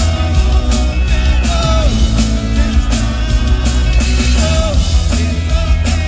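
Rock band playing loud live music: a drum kit beats steadily over a heavy bass line, with short bending pitched notes riding on top.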